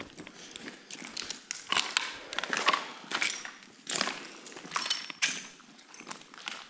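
Footsteps crunching and scraping over debris and litter on a floor, in irregular steps.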